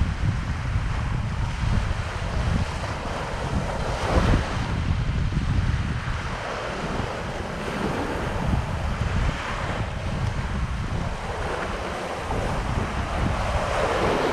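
Small waves breaking and washing up the sand every few seconds, with wind rumbling across the microphone.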